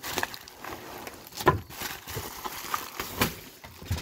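Bubble wrap and plastic packaging crinkling and rustling as a wrapped wooden baseball bat is pulled out of a cardboard box, with several knocks, the loudest about a second and a half in and again a little after three seconds.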